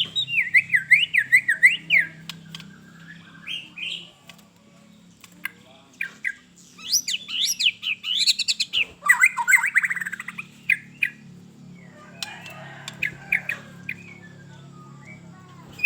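White-rumped shama singing in bursts of rapid, rising and falling whistled phrases, with sharp clicks between them.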